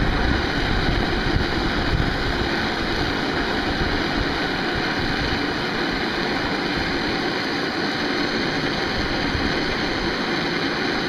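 MAP gas torch flame burning steadily with a constant hiss, heating a rubber leaf spring bushing to soften it for removal.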